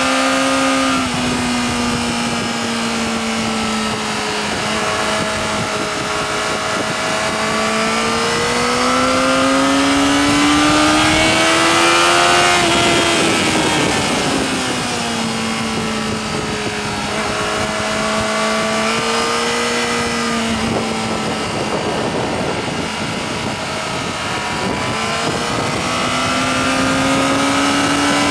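Yamaha R6 inline-four engine running hard at high revs under heavy wind rush. Its pitch climbs slowly to a peak about twelve seconds in, drops away, fades under the wind for a few seconds past the twenty-second mark, then climbs again near the end.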